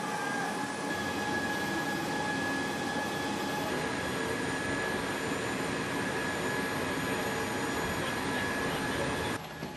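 Jet aircraft noise: a steady roar with a thin high whine over it, dropping away sharply near the end.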